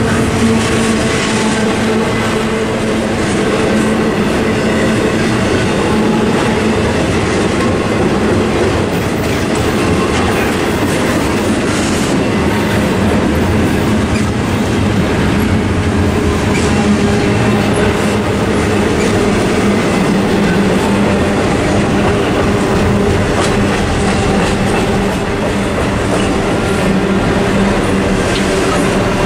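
A CSX intermodal freight train's double-stack container well cars rolling past, with a steady, loud noise of wheels running on the rails.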